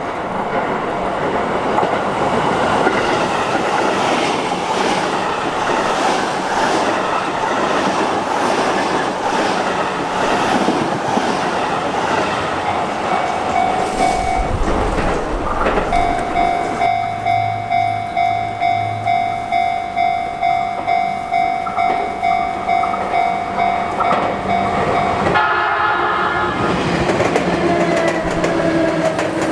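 A Sotetsu Line electric train running through the level crossing, its wheels clacking evenly over the rail joints for the first half. Then the level crossing's electronic warning bell rings in quick, even strokes for about nine seconds, followed near the end by a short horn-like tone and a falling motor note from a train.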